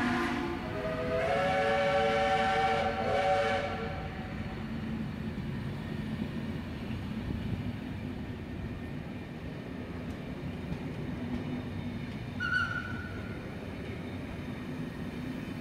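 Steam locomotive whistle, a many-note chime: a lower blast cuts off just after the start, and a higher blast sounds for about three seconds. Then the vintage carriages roll past on the rails with a steady rumble, and a brief high tone comes about twelve seconds in.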